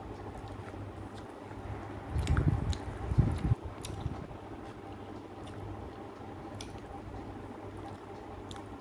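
Close-miked eating sounds of rice and chicken curry eaten by hand: chewing, with small wet mouth clicks. There is a louder, low, muffled stretch of chewing about two to three and a half seconds in, over a steady faint hum.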